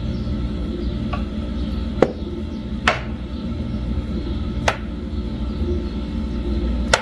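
Four or five sharp plastic knocks as a clear plastic container is tipped and tapped against the rim of a plastic tub to empty puréed zucchini into it. A steady low hum runs underneath.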